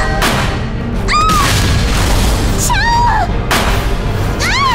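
Animated battle sound effects: several loud blasts in quick succession, with short cries between them, over background music.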